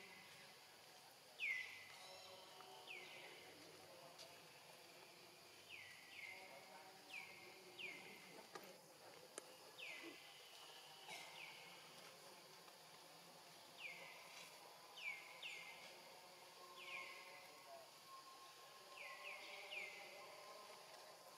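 Faint, short high-pitched animal calls, each sliding down in pitch, repeated in irregular clusters of two or three, over a quiet outdoor background.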